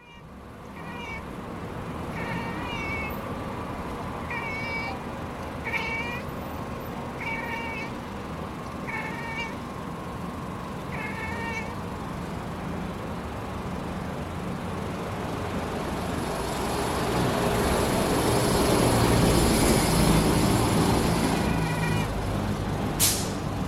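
Black-and-white domestic cat chirping at a pigeon: short, trilled chirps about every second and a half. The chirps stop for several seconds while a rushing noise swells, then come back near the end.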